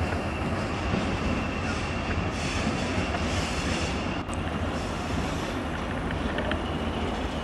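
Small diesel shunting locomotive running as it moves slowly along the track, a steady low rumble of engine and wheels, with a faint steady high whine above it.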